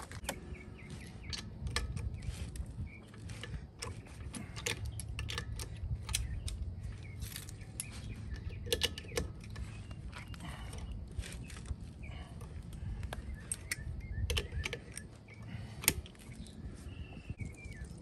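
Light metallic clicks and clinks, scattered irregularly, as loosened lug nuts are worked off a camper trailer's wheel studs with a socket wrench and by hand, over a steady low rumble.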